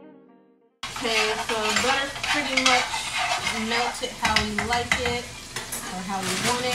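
Food sizzling in a frying pan while a utensil stirs and scrapes in it, giving short squeaky scrapes and clicks over the hiss. The sizzle cuts in abruptly about a second in.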